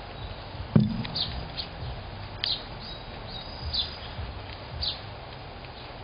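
Squirrel eating seeds right at a feeder camera's microphone: low crunches and knocks, with one loud bump about a second in. Short high chirps sound about once a second.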